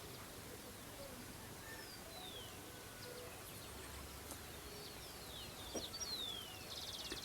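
Wild birds calling: many short, thin whistles sliding down in pitch, with a brief buzzy trill about six seconds in, over a faint steady hiss of open countryside.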